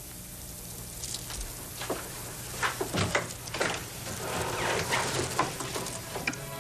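Irregular rustling with light clicks and taps over a low steady background, busier after the first second.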